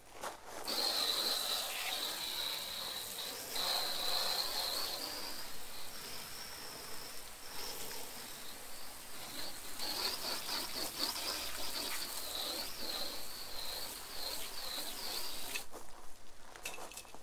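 Garden hose spray-gun nozzle spraying water onto a camper van's side panel: a steady hiss with a wavering high whistle on top. It starts about a second in and cuts off shortly before the end.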